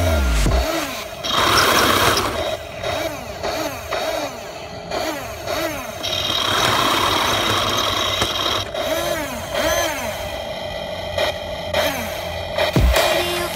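Heng Long King Tiger remote-control tank running, its built-in sound unit playing a simulated tank engine whose pitch rises and falls over and over.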